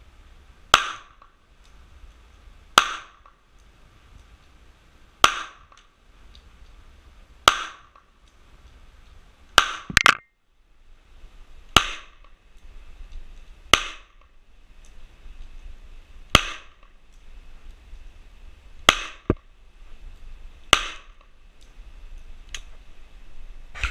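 Glock 17 9mm pistol fired in slow, single aimed shots: about eleven loud shots, mostly about two seconds apart, with two in quick succession near the middle.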